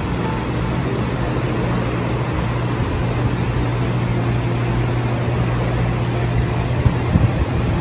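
Ventilation running: a steady low hum under an even rush of air, with a few light clicks near the end.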